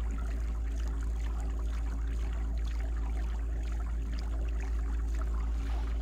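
Fishing kayak travelling under power: a steady low hum with several even tones, over a wash of water along the hull.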